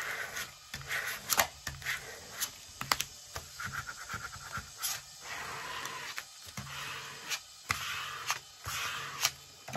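Vinyl sheet and cutting mat being handled at a Cricut cutting machine: irregular rustling and scraping of plastic, broken by sharp clicks.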